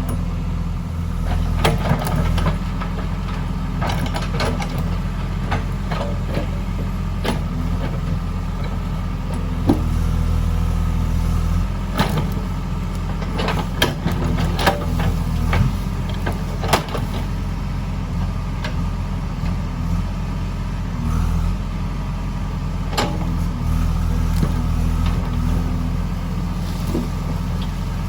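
Diesel engine of a JCB 3DX backhoe loader running steadily at a low, even speed, with scattered sharp knocks and clanks of metal and stone from the digging work.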